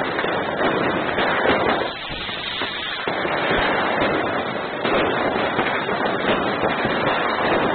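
Fireworks and firecrackers going off, a dense crackle of many closely packed small bangs and pops, easing off for a moment about two seconds in.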